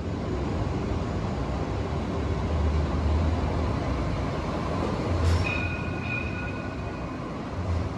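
Alstom Citadis light-rail tram arriving at an underground platform: a steady rumble and noise of the tram running in. About five seconds in there is a click, then a high, steady two-note tone that lasts about two seconds.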